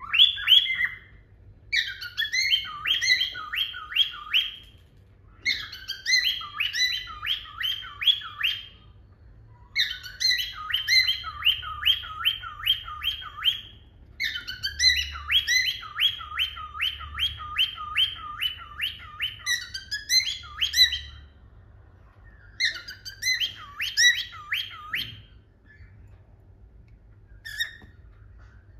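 A cockatiel singing: six runs of quick, repeated chirping notes, about two to three a second, each run a few seconds long with short pauses between, dying away near the end.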